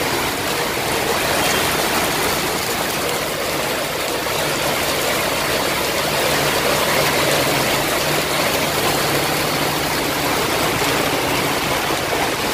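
Heavy rain pouring down and floodwater running over a street: a loud, steady hiss. A faint low hum runs through the middle.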